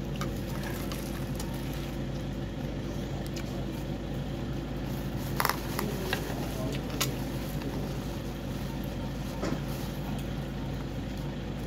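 Steady mechanical hum with a few short clicks and clinks, the sharpest about five and a half and seven seconds in.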